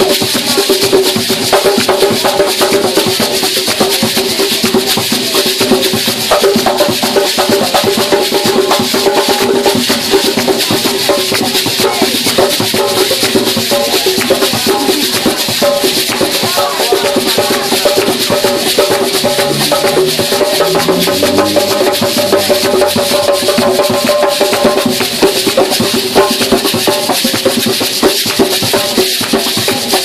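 Gwoka played live on hand drums, a djembe among them, driving a fast, steady rhythm under a constant hiss of calabash and gourd shakers. Voices sing over the drumming throughout.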